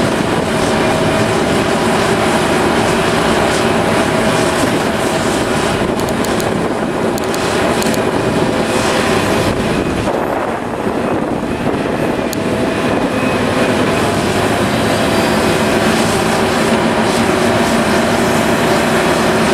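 Heavy diesel earthmoving machinery, a large hydraulic excavator working with articulated dump trucks, running steadily under load. It is a continuous deep engine drone with several steady tones in it, easing off slightly about halfway through.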